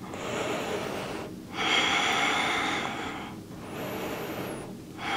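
A person breathing slowly and audibly in long, even breaths with short pauses between them; the second breath is the loudest. The breath is settling after an exerting yoga flow.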